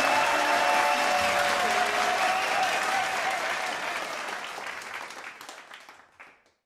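Audience applause over the last held notes of a song, fading out steadily to silence near the end.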